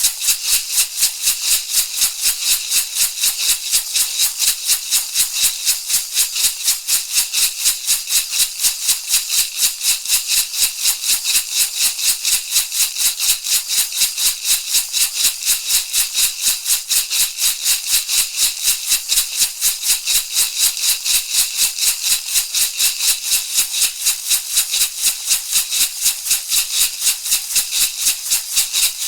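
Handheld shamanic rattle shaken in a steady, even rhythm of quick, bright, rattling strokes.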